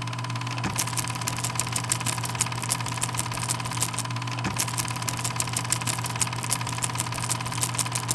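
A machine running: a steady hum with a fast, even clatter of clicks over it from about a second in.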